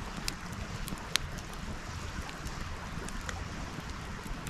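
Split firewood burning in an open fire pit, crackling with sharp, irregular pops over a steady low rumble. The loudest pop comes a little over a second in.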